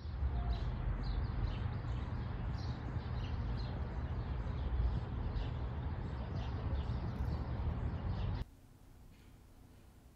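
Outdoor ambience: small birds chirping again and again over a steady low rumble, which cuts off suddenly about eight seconds in to quiet indoor room tone.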